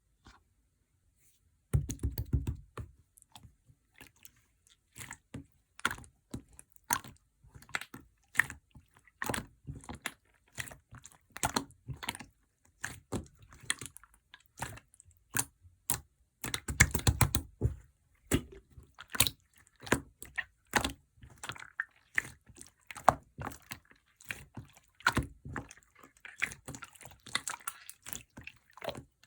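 Clear slime being pressed and kneaded by hand, giving a steady stream of irregular sticky clicks and pops, with heavier squelches about two seconds in and again a little past halfway.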